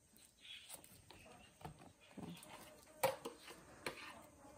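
Faint kitchen handling sounds: a knife cutting slices of ripe banana over a plastic plate, then a few sharp clicks about three seconds in as a utensil pushes the slices off the plate into the stew pot.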